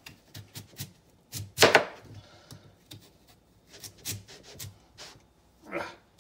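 Kitchen knife slicing rounds off a large raw sweet potato on a plastic cutting board. There are two louder cuts through to the board, one nearly two seconds in and one near the end, with light taps and knocks between.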